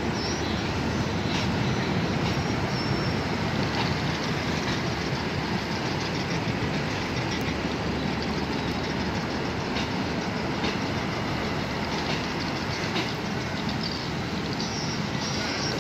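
Hitachi diesel-electric locomotive and its train running slowly along the track, a steady low engine and rolling noise with a few faint clicks of wheels over rail joints.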